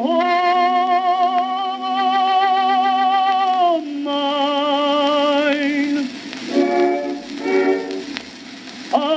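A tenor on a 1908 acoustic disc recording holds one long note with wide vibrato for about four seconds at the close of a recitative. The small orchestra then plays on alone with a few short chords.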